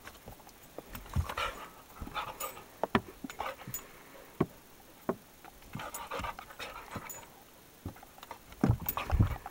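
A dog panting hard in irregular bursts while it wrestles with a cat, with scattered knocks and scuffles from their bodies. The loudest is a cluster of heavy thumps near the end.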